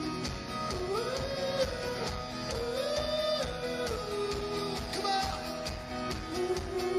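Live band playing a pop-rock song: a sung lead melody over strummed acoustic guitars, bass and drums keeping a steady beat.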